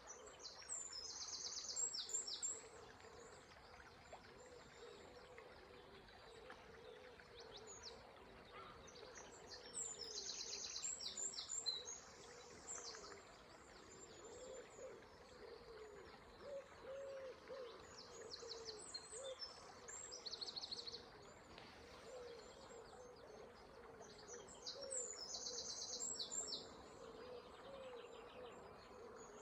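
Dawn chorus: a songbird sings a high, trilling phrase every several seconds, over low, short cooing notes from another bird repeating throughout. The faint steady rush of the river runs underneath.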